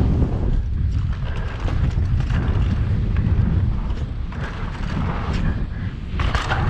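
Mountain bike descending a dirt singletrack at speed: wind rushing over the camera microphone, with the tyres rolling on dirt and the bike rattling and knocking over bumps. There is a brighter, louder burst of noise about six seconds in.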